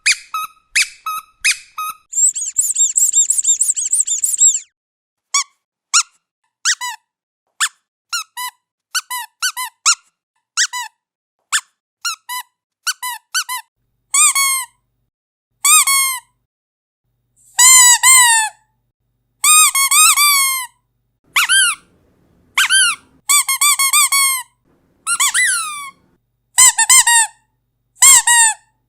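Squeaky dog toy squeezed over and over: a quick run of short squeaks, a fast high trill about two seconds in, then longer squeaks that bend down in pitch, some in quick pairs.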